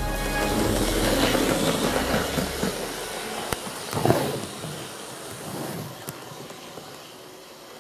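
HO-scale model of an EH10 electric locomotive running on the track: its wheels rumble and clatter on the rails, loudest at first, with a brief louder swell about four seconds in, then fading away.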